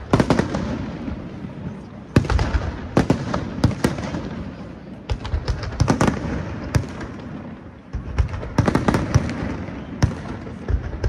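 Fireworks display: aerial shells bursting in quick succession, sharp bangs every second or so, some in tight clusters, each followed by a rolling echo and crackling of the bursting stars.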